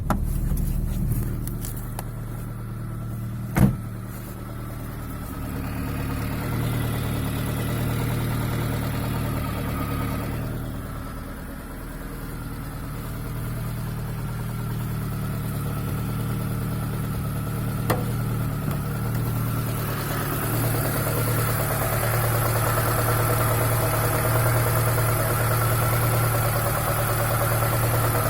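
ZAZ Chance's 1.3-litre petrol engine running steadily with a knock. The engine gets louder and brighter about two-thirds of the way through. Two sharp clicks stand out, one a few seconds in and one a little past the middle.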